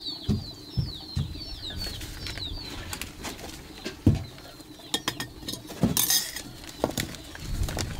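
A small bird chirping, a quick run of short falling notes over the first couple of seconds, amid scattered clinks and knocks of dishes and utensils.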